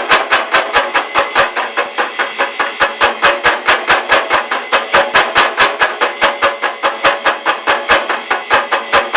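Homemade metal lathe running, with a loud, even knock about five times a second.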